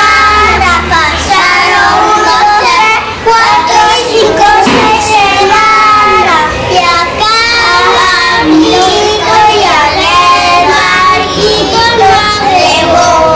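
A small group of young children singing a song together, with hand gestures that go along with the words.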